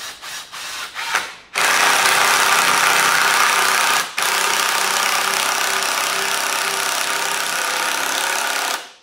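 Power drill driving a Tek screw into a wooden wedge: a quick series of short pulses, then a loud steady run of about seven seconds with a brief break near the middle, stopping abruptly near the end.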